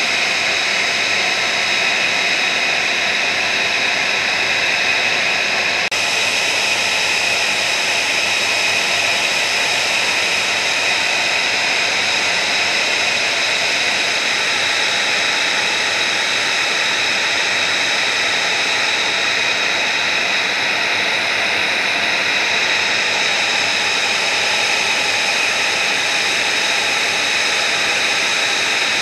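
F-35B Lightning II jet engine running steadily at idle: a loud, even high-pitched whine over a rush of noise.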